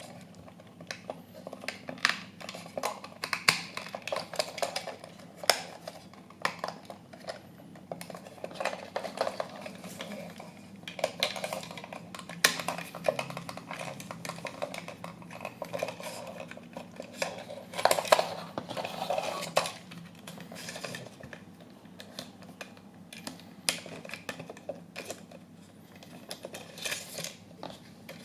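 Small hard parts and hand tools clicking, clinking and scraping in an irregular run of sharp ticks, as in hands-on work on a scale model car.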